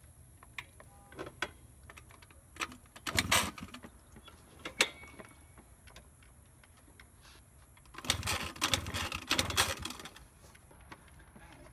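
1992 Honda Elite 50 SR's 49cc two-stroke engine being turned over by its electric starter in two bursts of rapid rattling cranking, a short one and then a longer one, with scattered clicks between, the engine never catching.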